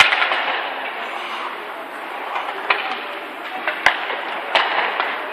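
Ice hockey play: a steady scraping hiss of skates on the ice, broken by several sharp clacks of sticks and puck, one at the very start and three more in the second half.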